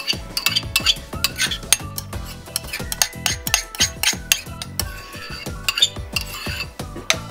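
A metal utensil scraping and clinking against a ceramic bowl in quick, irregular strokes, scraping a thick sauce out into a pan.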